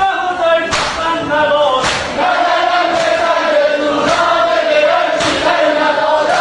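A group of men chanting a Shia mourning lament (noha) in unison, with a sharp slap of hands beating on chests (matam) about once a second in time with the chant.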